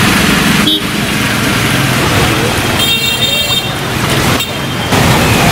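Motor traffic driving through floodwater on a city street: engines running over a steady wash of water noise, with a horn sounding for about half a second roughly three seconds in.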